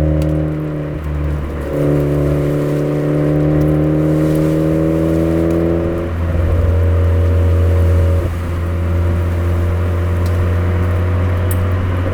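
Suzuki Swift Sport ZC33S's 1.4-litre turbocharged four-cylinder running through a Fujitsubo aftermarket exhaust while driving downhill. The engine note holds steady, rising slowly in pitch, then shifts to a new pitch a few times, about two seconds in, about six seconds in and about eight seconds in.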